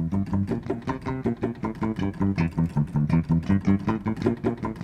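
Shreddage 3 Precision sampled five-string P-bass playing a fast legato bass line, a quick run of short notes at about six a second.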